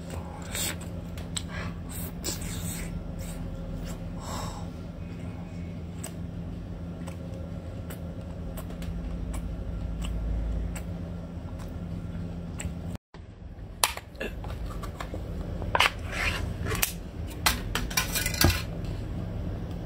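Close-up chewing and mouth sounds of someone eating chewy sea snail meat, over a steady low hum. In the second half come a series of sharp clicks and clinks: a metal tin can handled on a plate.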